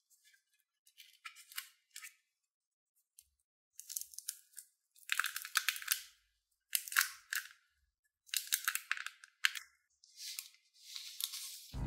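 Thin clear plastic protective film being handled and peeled off the back of a new smartphone, crinkling and rustling in a run of irregular bursts with short pauses between them. Music with a steady bass comes in at the very end.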